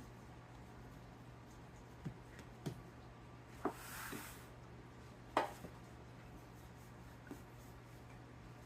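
A few light knocks, the loudest about five seconds in, with a brief soft rustle around four seconds, over a steady low hum.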